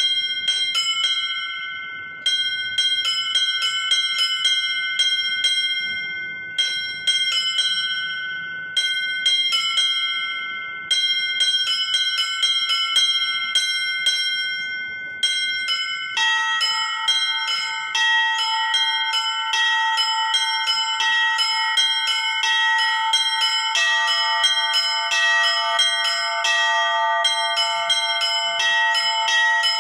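Orthodox church bells rung by hand: small high bells struck in a quick, repeating rhythmic pattern. Lower-pitched bells join about halfway through, and a further lower bell joins near the end, so the peal grows fuller.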